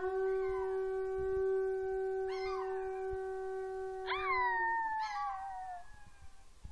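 A conch shell trumpet blown in one long steady note lasting about four and a half seconds. Over it a Chihuahua–miniature pinscher mix howls along in short gliding cries. As the conch stops, the dog's howl carries on alone for a second or so, falling in pitch.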